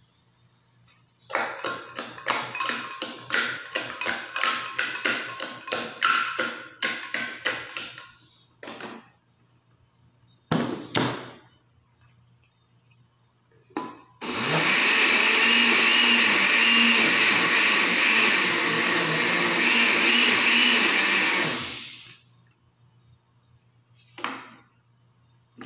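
Electric blender with a glass jug blending aloe vera gel, starting about halfway through and running steadily for about eight seconds before it stops. Before it comes a quick run of clinks and knocks as a spoon scrapes the aloe gel into the glass jug, and a few single knocks.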